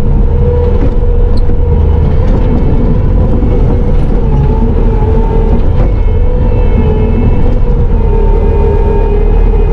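Bobcat T650 compact track loader's diesel engine running steadily under load with its hydraulic whine, heard from inside the cab; the whine shifts slightly in pitch a couple of times.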